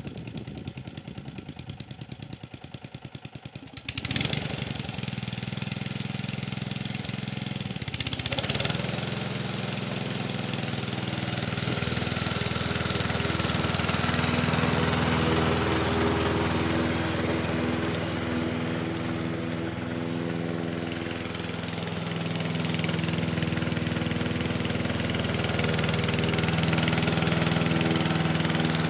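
Honda HR215 lawn mower's single-cylinder engine idling with fast, even pulses, then revving up sharply about four seconds in and again around eight seconds, and running steadily at speed as the mower cuts grass.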